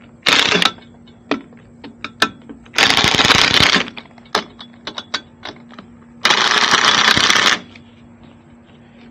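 Three bursts of rapid mechanical rattling: a short one at the start, then two of about a second each, around three seconds in and again past six seconds. Scattered clicks and knocks fall between them, over a faint steady hum.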